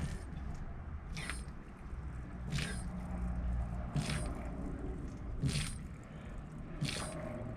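Rubber primer bulb on a remote fuel tank's line squeezed by hand over and over, a short squish about every second and a half, pushing fuel toward the engine's electric fuel pump to prime it.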